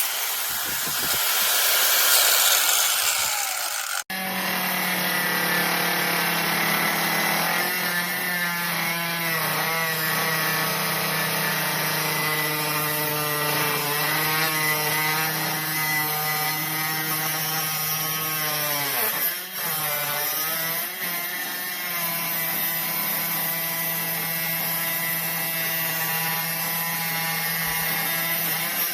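Battery-powered grinder's motor running under load. For the first four seconds a harsh grinding hiss dominates, then it cuts off abruptly. After that comes a steady motor whine whose pitch wavers as the disc works, dropping sharply about nineteen seconds in as it is pressed harder and then recovering.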